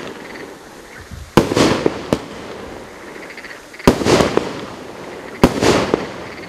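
A 30 mm, 19-shot firework cake firing three loud shots: one about a second and a half in, one near four seconds and one past five seconds. Each bang trails off into about half a second of hissing crackle from the brocade stars. A couple of smaller sharp pops follow the first shot.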